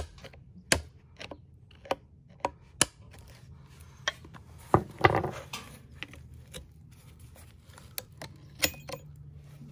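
Hammer striking a chisel to drive out the steel retaining clip of a Spicer U-joint in a Dana 30 front axle shaft yoke: sharp metallic taps at an uneven pace, with a louder, briefly ringing blow about five seconds in.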